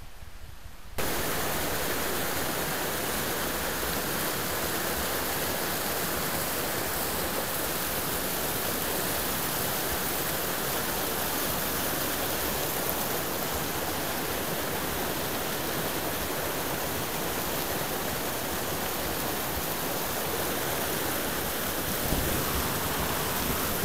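Fast mountain stream rushing in whitewater over boulders, a steady loud rush that cuts in suddenly about a second in.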